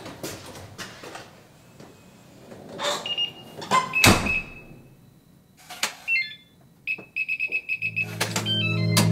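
A front door shutting with a thud and latch click about four seconds in, followed by the beeps of an electronic keypad door lock. Background music with guitar and bass comes in near the end.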